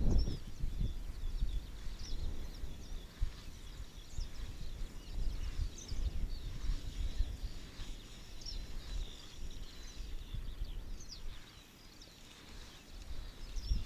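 Wind gusting over the microphone in uneven rumbling buffets, with small birds chirping and singing in short calls throughout.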